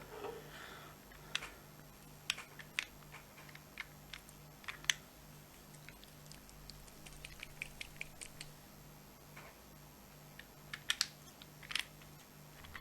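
Scattered light clicks and taps of small hard parts being handled, with a quick run of small clicks about seven to eight seconds in and a few louder clicks near the end.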